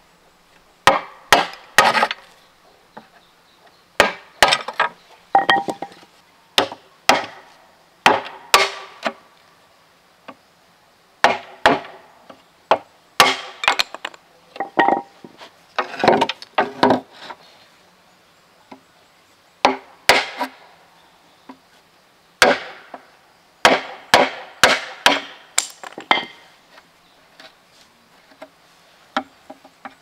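A heavy knife blade chopping into a green bamboo pole, with sharp woody chops in quick runs of a few strokes and short pauses between, then lighter taps near the end.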